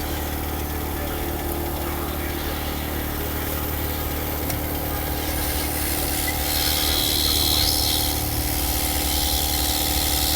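Steady hum and rushing air of a hot air rework station blowing on the motherboard to solder in a replacement MOSFET. A sharper hiss swells for a second or two past the middle.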